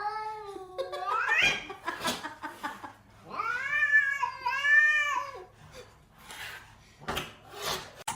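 Domestic cat yowling: a drawn-out call that glides up in pitch at its end, then a longer wavering yowl with two swells about three and a half seconds in, with short noisy bursts between.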